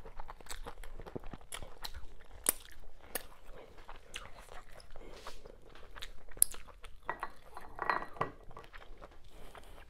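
Close-miked chewing and wet mouth sounds of someone eating fufu with okra soup, with many short sharp clicks and smacks. A denser, louder patch of sound comes about seven to eight seconds in.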